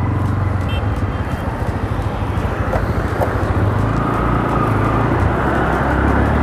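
Bajaj Pulsar N160's single-cylinder engine running as the motorcycle pulls out onto the road and gathers speed, getting slowly louder, with the sound of surrounding traffic.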